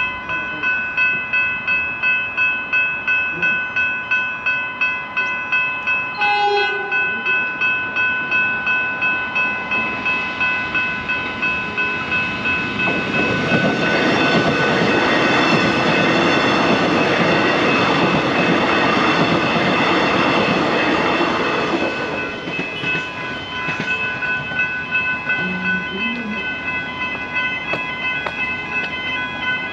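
Level crossing warning bells ringing in a steady repeating pulse, while an electric suburban passenger train crosses. From about 13 to 22 seconds in, the train's rumble and wheel noise rise over the bells, then fade again.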